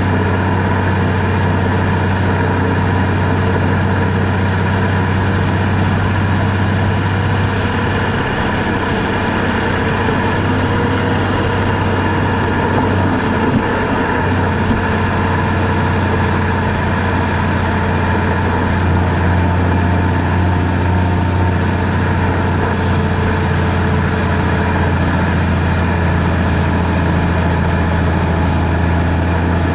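Vehicle engine running and road noise while driving, a steady low drone with little change in level.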